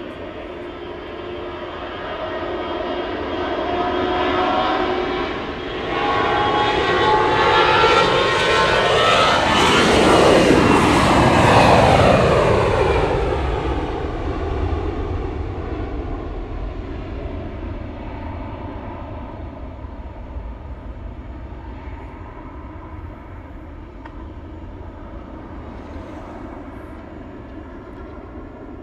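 An airliner flying past, its engine noise building to a peak about ten to twelve seconds in, the engine whine sliding down in pitch as it goes by, then slowly fading.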